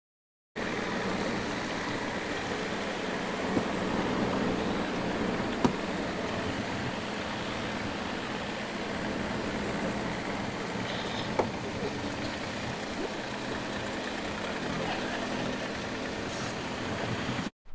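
Underwater ambient noise: a steady hiss over a low hum, with a few sharp clicks about 3.5, 5.5 and 11.5 seconds in. It starts and stops abruptly.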